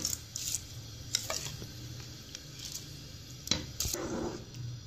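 Soaked rice being tipped from a bowl into a pot of boiling water, with a few light knocks and scrapes of the bowl against the pot.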